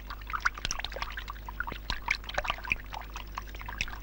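Water trickling and bubbling, a busy scatter of small, quick blips, over a steady low hum.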